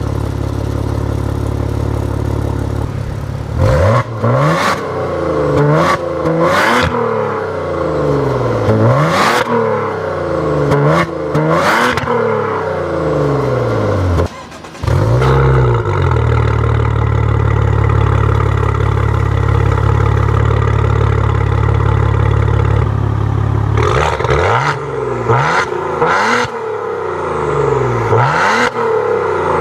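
2015 Maserati Ghibli's V6, warm and on its stock exhaust, idling, then blipped repeatedly so the revs sweep up and fall back several times. About midway it cuts out briefly and fires back up to a steady idle (a warm start), then is revved in quick blips again near the end.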